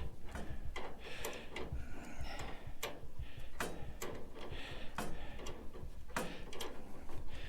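Irregular sharp metal clicks and clinks, a few each second, with short scrapes in between, from hand tools working on the metal parts of a gas grill being taken apart.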